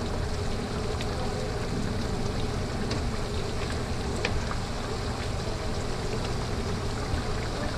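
A skillet of ground-beef picadillo in tomato sauce bubbling at a boil on a gas stove, stirred with a wooden spoon, under a steady rushing hiss. A few light clicks of the spoon against the pan come through.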